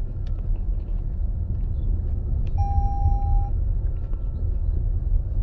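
Car driving, a steady low rumble of engine and road noise. A single electronic beep, just under a second long, sounds about two and a half seconds in.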